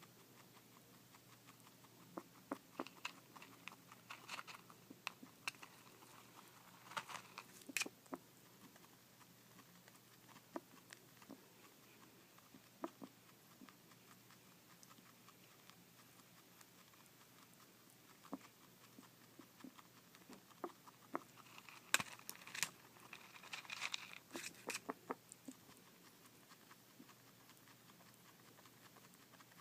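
A small pet chewing and crunching food. The sound comes as bouts of rapid sharp clicks, three main clusters with single clicks scattered between, the loudest near the end.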